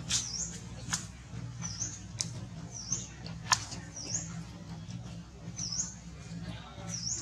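Short, high chirping calls that dip and rise again, repeating about every second and a half, with a few sharp clicks between them and a steady low hum underneath.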